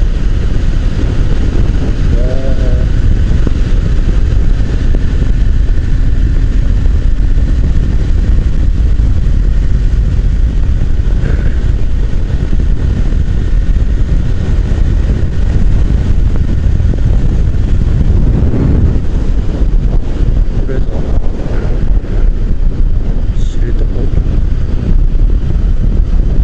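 Motorcycle running steadily at road speed, heard under a constant heavy low rumble of wind on the rider's microphone.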